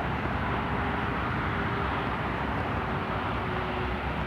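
Steady rushing outdoor background noise, with a faint steady hum from about half a second in until near the end.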